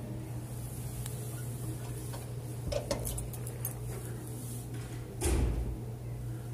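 Steady low hum of an indoor room, with a brief knock about three seconds in and a louder, dull thump a little after five seconds.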